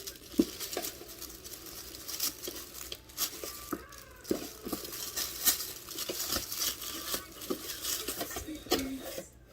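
Tissue paper and packaging being handled, crinkling and rustling in many short crackles, quieter near the end.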